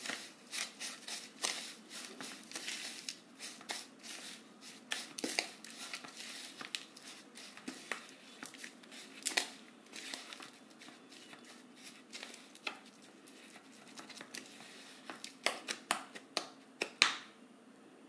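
A spatula stirring and scraping a crumbly, dry mix of semolina, hung curd and chopped herbs around a plastic mixing bowl, in quick irregular scrapes and taps that stop just before the end.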